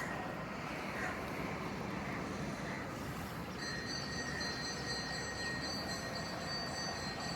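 Steady rushing noise of a moving vehicle, with a thin high whine that drops out for the first few seconds and returns about halfway through.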